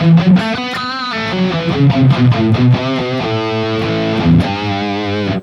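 Harley Benton Fusion electric guitar played through a high-gain preset on a Harley Benton DNAFX Git Pro modelling unit, with its 808 Screamer overdrive model engaged: a distorted lead phrase of sustained notes with vibrato, stopping abruptly at the end.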